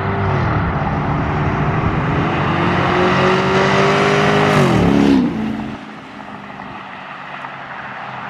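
Two Hemi V8 Chrysler 300 sedans racing at full throttle, their engine note rising steadily in pitch as they approach. About five seconds in they pass close by, the pitch drops, and the sound fades as they pull away.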